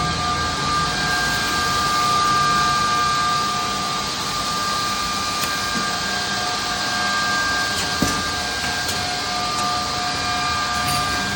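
Edge banding machine running: a steady mechanical din with high motor whines that drop out and return, and a single sharp click about eight seconds in.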